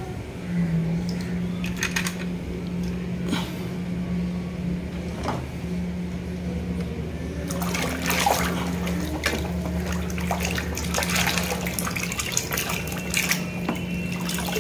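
Hands swishing and splashing small plastic toy vehicles through a basin of muddy water, with scattered clicks of handling at first and heavier splashing from about halfway through. A steady low hum runs underneath.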